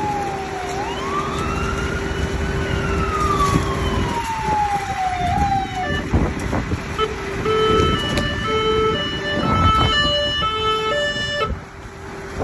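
Emergency vehicle siren wailing, its pitch sliding down, up and down again. It then changes to a pattern of short stepped tones and cuts off sharply near the end, over the steady drone of a vehicle engine.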